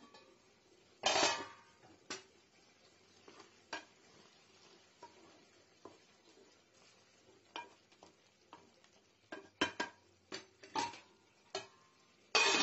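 Metal lid and ladle clattering and knocking against an aluminium cooking pot while chopped tomatoes are stirred, over a faint sizzle. There is a loud clatter about a second in, a run of knocks and clinks later on, and another loud clatter near the end as the lid goes back on.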